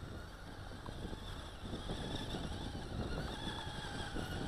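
Faint high whine of a small electric motor in a toy RC snowmobile driving slowly over snow, rising slightly in pitch, over low wind rumble on the microphone.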